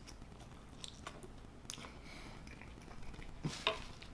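Close-miked chewing of chili cheese fries, soft wet mouth sounds with a few small crunches, and a couple of sharper clicks near the end.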